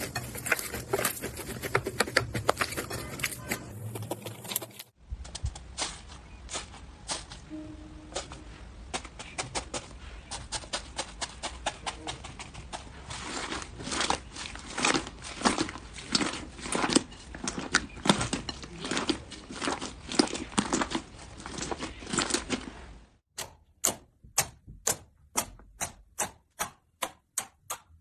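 Slime being handled and pressed, giving a continuous run of crackling clicks and pops. The sound changes abruptly about five seconds in and again near the end, where it turns into separate sharp pops, roughly two or three a second.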